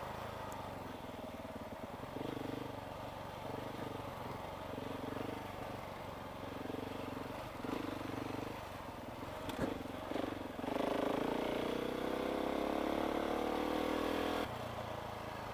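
KTM 690 single-cylinder engine on a rough dirt track, the throttle opened and closed in short pulses, then held open for a rising rev of a few seconds near the end that cuts off suddenly.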